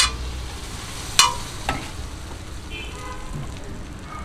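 Dabeli buns sizzling as they toast on a flat griddle (tawa), with a metal spatula clinking sharply against the griddle three times in the first two seconds.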